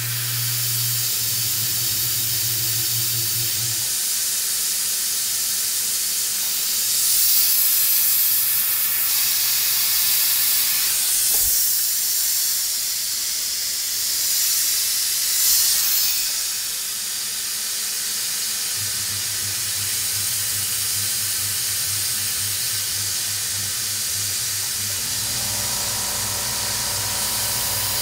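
Compressed-air hiss from a Fog Buster mist-coolant nozzle over a Tormach 440 CNC mill running as a 1/8-inch end mill opens up a hole in hardened S7 tool steel. The hiss swells a few times, a low hum comes and goes, and a steady higher whine joins near the end.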